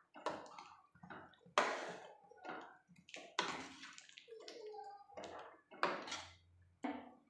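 Ladle stirring watery chickpea curry in a metal kadhai: a string of sloshing, splashing strokes, each starting sharply and fading, about one a second.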